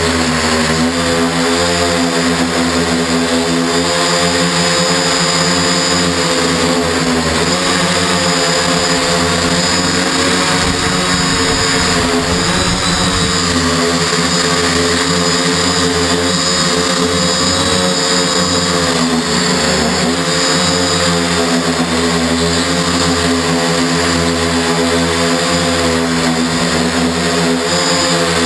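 Octocopter's eight electric motors and propellers buzzing steadily, heard up close from a camera on the frame. The pitch wavers up and down as the throttle changes.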